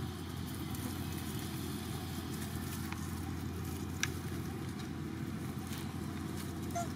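Steady low outdoor rumble, with a single sharp click about four seconds in.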